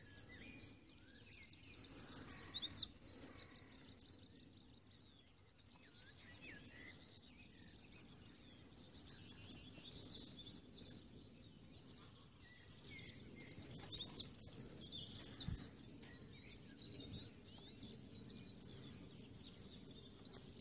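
Several small birds singing, with quick high chirps and trills that come and go, loudest a couple of seconds in and again in the middle.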